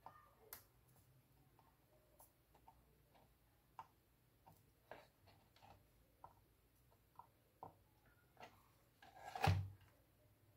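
Faint, scattered light clicks and taps from a soldering iron and hands working a motherboard's solder side. About nine and a half seconds in comes a louder handling clatter with a low bump as the circuit board is lifted and turned over.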